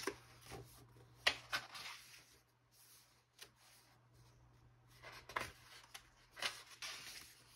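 Glossy pages of a large catalog book being turned and hands sliding over the paper: a few brief rustles and swishes with quiet between.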